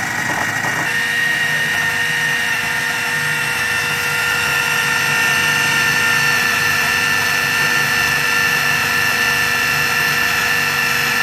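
Electric food processor motor running steadily with a constant whine, blending frozen strawberries and Greek yogurt into a smooth purée.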